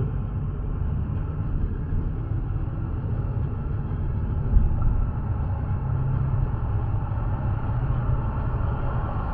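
Low rumble of engine and tyre noise heard inside a car's cabin as it pulls away and speeds up to about 20 mph, with one sharp thump about four and a half seconds in.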